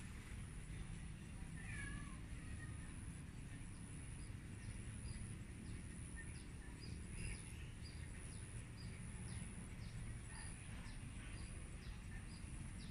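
A cat meows once, faintly and briefly, about two seconds in. Underneath, a steady high insect whine and a small chirp repeat about every two-thirds of a second.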